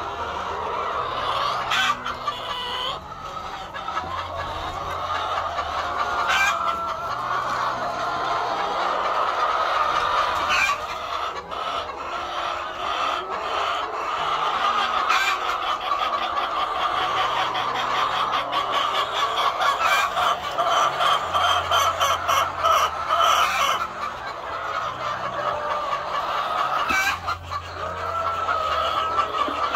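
A flock of white laying hens clucking continuously, many birds calling over one another, with occasional sharp clicks and knocks.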